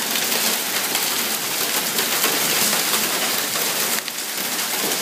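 Hail and heavy rain pelting the pavement and parked cars: a dense, steady patter of countless small impacts.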